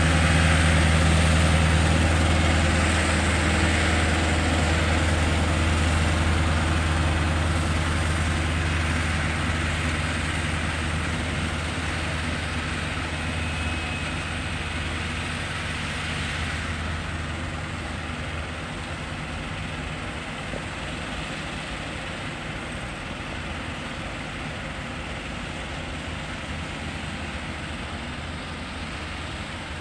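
A compact sidewalk tractor's engine and front-mounted snowblower running as it clears a walkway, a steady low engine hum with a rushing blower noise over it, growing fainter as the machine moves away.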